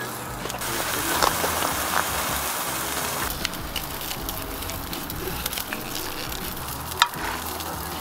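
Tomahawk steak sizzling over a crackling wood fire in a metal brazier: a steady frying hiss with a few sharp pops, one louder pop near the end.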